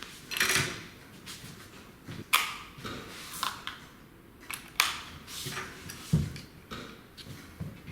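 Scattered plastic clicks and handling rustles as two AA batteries are fitted into a wireless flash trigger and its battery cover is worked.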